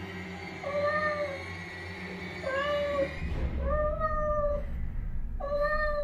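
Recorded cat meows played through a small speaker: four drawn-out, plaintive meows, about one every one and a half seconds.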